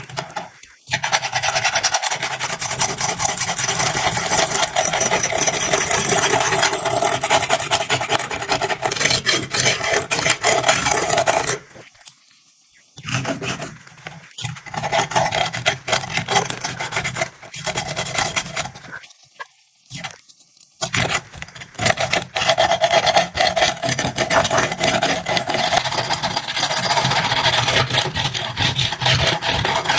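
Rasping abrasion by hand on the cleaver, with quick back-and-forth rubbing strokes. It stops briefly twice.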